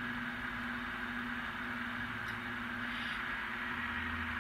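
ESU LokSound decoder in an N scale ScaleTrains GE ET44AC model playing the GEVO diesel engine idling: a steady, even hum.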